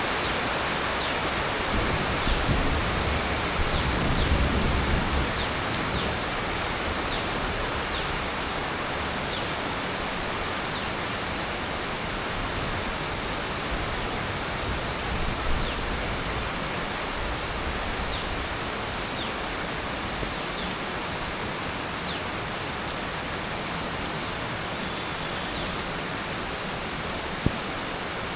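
Heavy tropical monsoon rain falling steadily, an even hiss of rain on surfaces and leaves. A low rumble swells a few seconds in, and faint short high chirps come and go.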